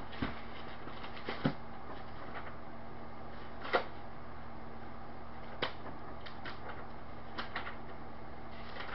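Steady hum and hiss with a faint steady tone, broken by a handful of short, soft clicks and rustles of handling at a desk, the sharpest near four seconds in and just before six seconds in.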